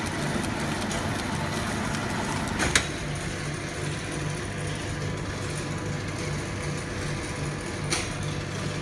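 Metal lathe running steadily under power, a low machine hum with a regular pulse, with a sharp click about a third of the way in and another near the end.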